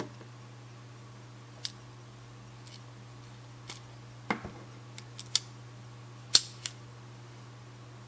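Stainless steel multi-tool pocket knife being handled, giving a scattering of sharp metallic clicks at uneven intervals as its folding tools are worked open against the springs. The loudest click comes about six seconds in.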